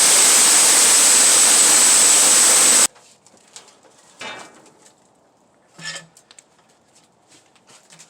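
Sawmill running with a loud, steady noise and a thin high whine, stopping abruptly about three seconds in. A few light knocks and clatters follow.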